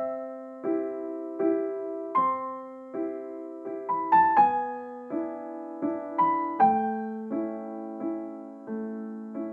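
Solo piano music: a slow, gentle melody over chords, a new note or chord struck about every three quarters of a second, each ringing and fading.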